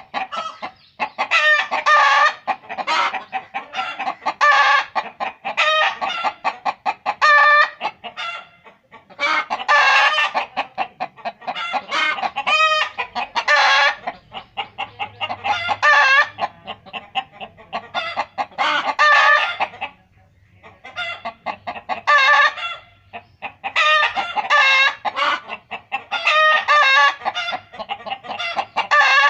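Chicken clucking nonstop: rapid runs of short, pitched clucks in bouts, broken by brief pauses, the longest about twenty seconds in.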